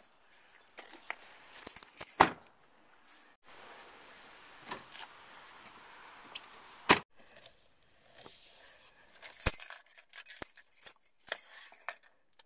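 Car doors being handled and shut, with two sharp knocks about two seconds and about seven seconds in and smaller clicks and rattles between and after them.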